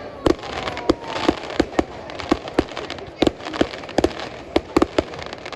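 Professional fireworks display: firework shells bursting in a rapid, irregular barrage of sharp bangs, about three a second, over steady crackling. A thin whistle glides down in pitch during the first second and a half.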